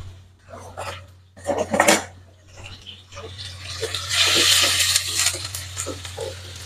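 A utensil knocking and clinking against a metal pan, then chopped green chillies hitting hot sesame oil and sizzling loudly for a couple of seconds before the sizzle eases.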